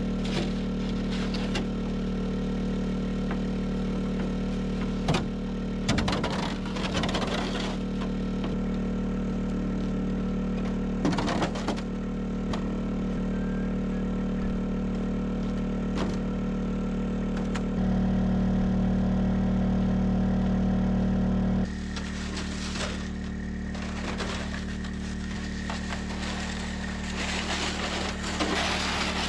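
Vehicle engine running at a steady speed, a constant drone with a few scattered knocks and clatters. The drone gets louder for a few seconds about two-thirds of the way through, then drops back abruptly.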